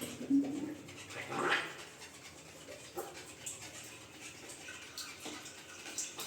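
A dog whimpering briefly in the first two seconds, with a short rising whine about a second and a half in. After that come only faint scattered clicks of pipe fittings being handled.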